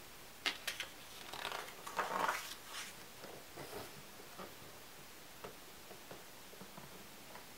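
A page of a large hardcover photo album turned by hand: a few crisp clicks as the page is lifted, then a paper swish lasting about a second and a half as it turns over, followed by faint light ticks and rustles as it settles.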